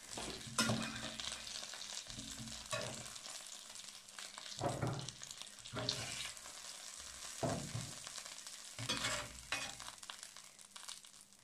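Chicken sizzling lightly in a stainless steel Saladmaster electric skillet, cooked without oil. A metal spatula scrapes and knocks against the pan about seven times as the pieces are lifted out.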